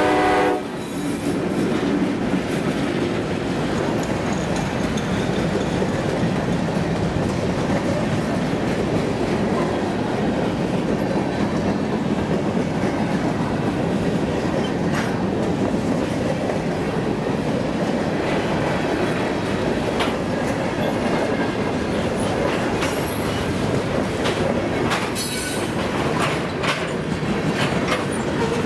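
Freight train of covered hopper cars rolling past, a steady rumble of steel wheels on the rails with scattered clicks from the rail joints. A locomotive horn cuts off about half a second in.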